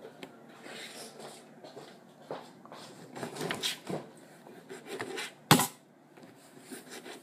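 Small kitchen knife slicing through strawberries on a tabletop: a series of soft scrapes and taps from the blade, with one sharp knock about three-quarters of the way through.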